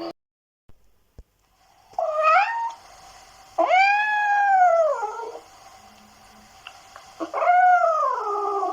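A cat meowing three times: a short rising meow, then a long drawn-out meow that rises and falls, then another long meow that slides downward.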